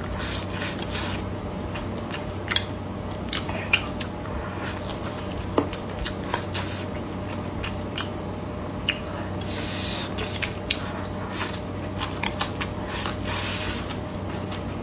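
Close-miked chewing of stir-fried braised pig head meat: irregular sharp mouth clicks and smacks as the meat and cartilage are chewed, with a steady low hum underneath.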